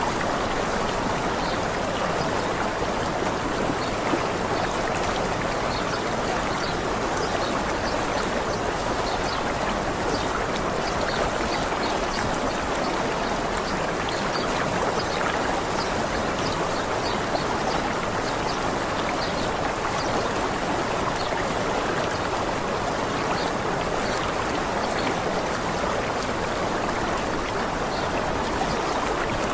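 Steady rushing of a waterfall, with short high bird chirps scattered through it.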